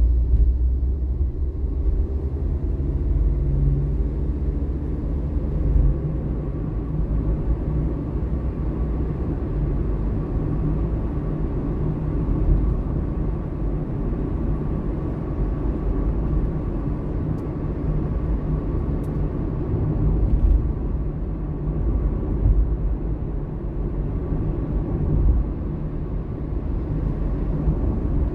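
A car driving along the road: a steady low rumble of engine and tyre noise.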